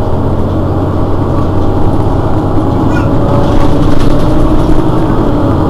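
Mercedes-Benz Citaro city bus engine idling steadily at a stop, a loud, even hum heard from just behind the bus.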